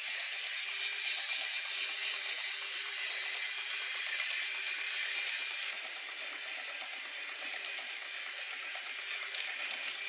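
Steady hiss with a faint low hum, easing a little about halfway through; near the end a few light clicks as plastic building-block pieces are pressed together.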